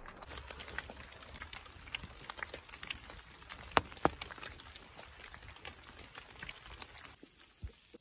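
Open fire from flaming torches and a campfire crackling, with many small irregular pops and two sharp louder pops near the middle. The crackling drops to a faint hiss near the end.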